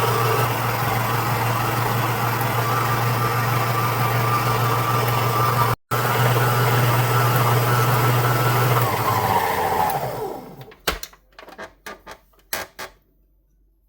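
Food processor motor running steadily as it kneads bread dough, then winding down and stopping about ten seconds in. A few short knocks and clicks follow.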